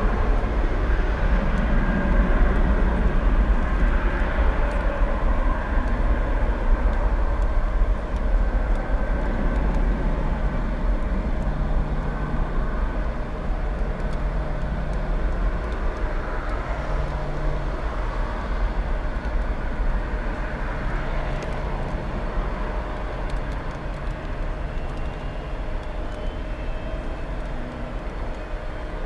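Airbus A320-family airliner's twin jet engines at takeoff thrust, a steady low rumble that slowly fades as the jet rolls away down the runway and climbs out.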